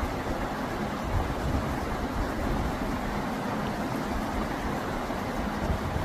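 Steady rush of running water from a shallow, rocky mountain stream.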